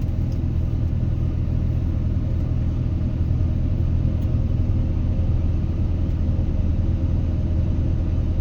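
Heavy diesel machinery running steadily with a low, even drone and strong vibration, heavy enough to shake the cabin.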